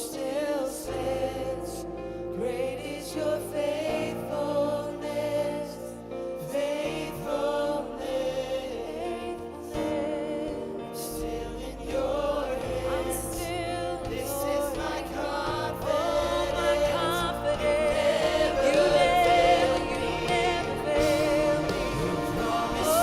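Church worship music: a group of voices singing over held low accompaniment notes that change every few seconds.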